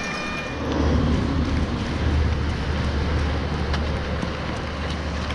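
Wind buffeting the microphone of a camera carried by a runner in wind and rain: a steady hiss with a heavy low rumble from about a second in until about four seconds in.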